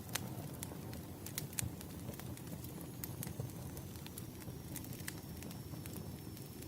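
Wood fire crackling, with irregular sharp pops and snaps over a low steady rumble of burning logs.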